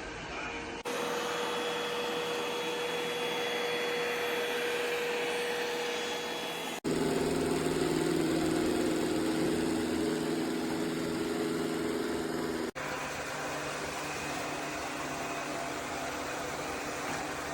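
ECOVACS DEEBOT X9 PRO OMNI robot vacuum running: a steady motor hum with a whine, heard in three short stretches that cut suddenly from one to the next, each at a different pitch. The middle stretch is the loudest and lowest.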